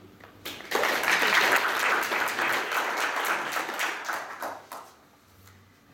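Audience applause, a roomful of people clapping. It starts just under a second in and dies away about a second before the end.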